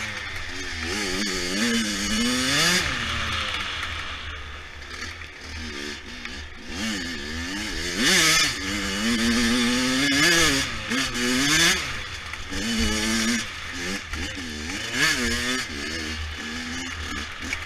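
Dirt bike engine revving up and falling back over and over as it is ridden, its pitch rising and dropping every second or two. A few short bursts of rushing noise break over it, about halfway through and again later.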